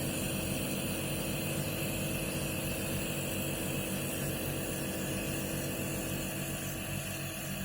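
Nebulizer's air compressor running with a steady hum during a steam inhalation treatment.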